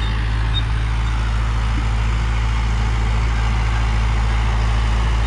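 Preet 6049 Agritrac tractor's diesel engine running steadily under load while pulling an 18-disc harrow, growing slightly louder as it comes closer.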